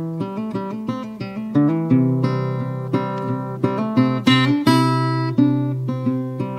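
Acoustic guitar intro of an AI-generated country song: quick picked notes, then strummed chords ringing out from about two seconds in, with no singing yet.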